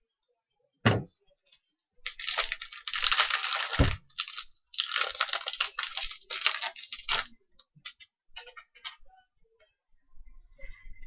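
A pack of hockey trading cards being torn open: loud crackling and ripping of the wrapper, with a sharp knock about a second in and a dull thump near four seconds, then light clicks as the cards are flipped through.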